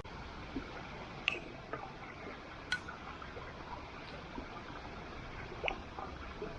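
Wood campfire crackling over a steady hiss, with a few sharp pops.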